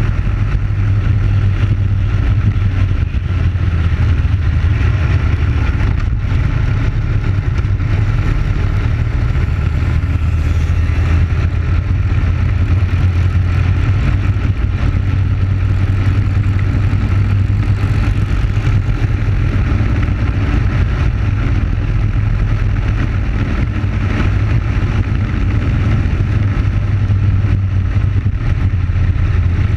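Briggs & Stratton Animal single-cylinder four-stroke kart engine running flat out at steady high revs, heard onboard the racing kart.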